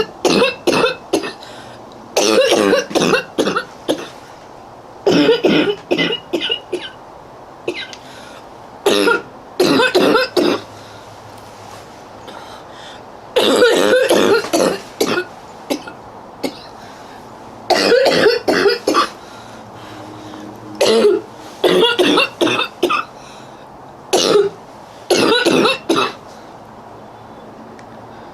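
A girl coughing in repeated fits, each a quick run of several harsh coughs, about ten fits with pauses of a second or more between them.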